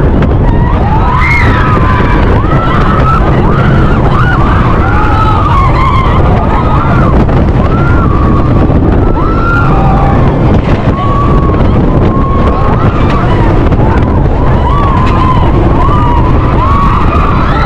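Iron Gwazi roller coaster ride: heavy wind rushing over the microphone and the train's rumble on the track, with riders yelling and screaming throughout.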